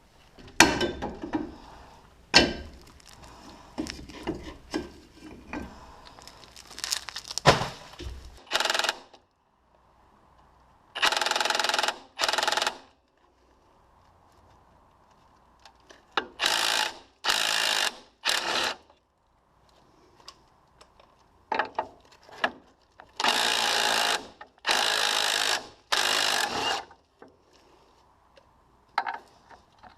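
Several seconds of metal clanks and knocks from tools being handled, then a cordless power tool run in about eight short bursts of a second or so each, with pauses between.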